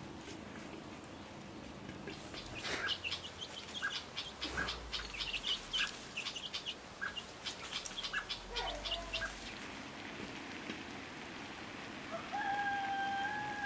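Chickens chirping and clucking while foraging, a run of short repeated chirps mixed with sharp clicks lasting several seconds; near the end one long held call.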